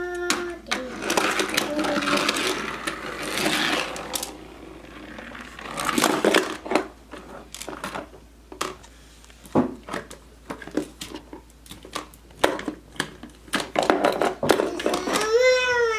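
Small plastic toy cars clicking, knocking and rattling against a plastic ramp garage playset: an irregular run of clicks with longer rattling stretches. Near the end a toddler's voice rises and falls briefly.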